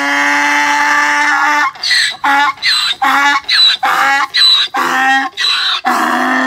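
Donkey braying: one long held note, then a run of rapid alternating higher and lower notes, the hee-haw.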